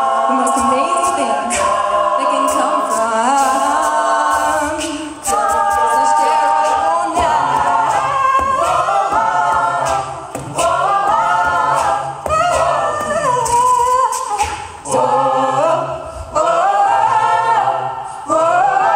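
A mixed a cappella group singing, with a woman's lead voice over many backing voices and beatboxed vocal percussion. A low sung bass line comes in about four seconds in.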